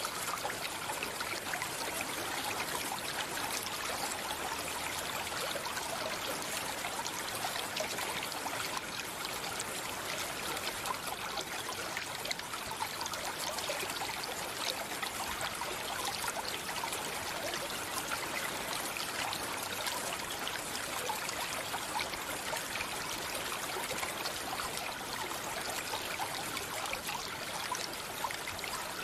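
Water of a small stream flowing steadily, an even trickling and splashing with no tune or birdsong over it.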